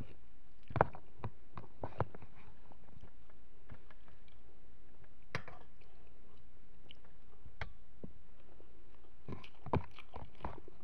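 A person eating with a spoon and fork from a plastic container: quiet chewing with scattered short, sharp clicks, and a quicker run of clicks near the end.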